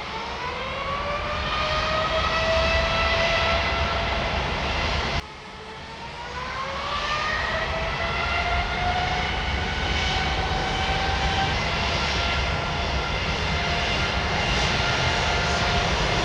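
Boeing 787 turbofan engines spooling up to takeoff thrust: a whine of several tones rises and levels off over the engines' steady rush. About five seconds in the sound cuts abruptly to the other engine type, GEnx or Trent 1000, whose whine climbs again and settles into a steady high tone.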